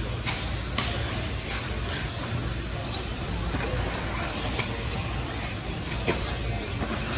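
1/10-scale electric 2WD off-road RC buggies running on an indoor clay track, a steady hiss of motors and tyres over the hall's din, with two sharp clacks, one about a second in and one near the end.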